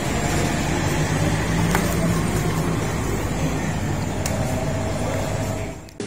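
A motor vehicle engine running steadily at idle, a low even hum with a few faint ticks.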